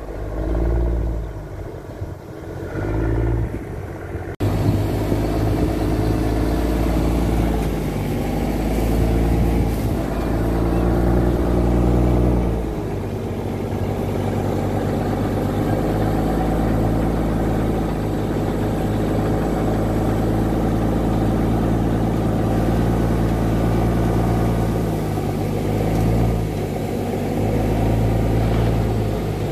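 Caterpillar 730 articulated dump truck's diesel engine running while the truck tips its load, loud and steady from about four seconds in, revving up and down a few times in the first half.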